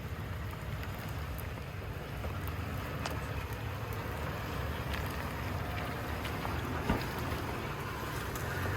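Off-road vehicle driving along a rough trail: a steady low rumble with a few knocks, the sharpest about seven seconds in.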